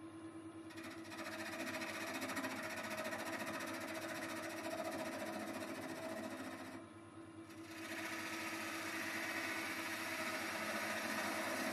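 Wood lathe running with a stone pine blank, and a turning tool cutting its spinning end face: a steady hum under a continuous hiss of cutting that starts just under a second in. The cut stops briefly about seven seconds in, then resumes.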